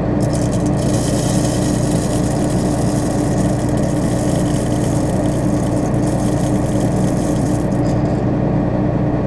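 John Deere 9500 combine running steadily with an even drone. A high hiss sits over it from about a second in until near the end.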